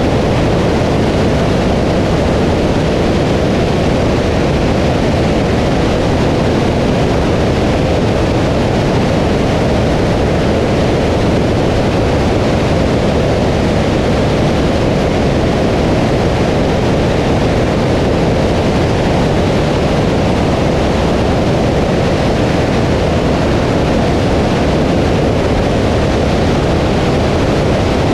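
Steady, loud rush of airflow over a camera mounted on the outside of a light single-engine piston aircraft in cruise flight, with the engine's low drone underneath.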